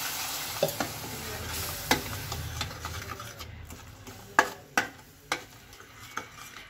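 Steel spoon stirring and scraping tomato puree and spice masala frying in a stainless steel pan. The sizzle fades over the first few seconds, and the spoon clicks sharply against the pan several times, loudest about two and four and a half seconds in.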